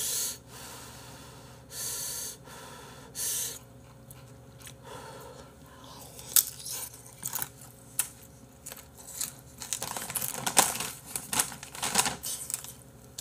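Close-up chewing of crisp air-fried Bibigo dumplings, with irregular crunches and wet clicks that grow thick in the second half. Three short breaths sound in the first few seconds.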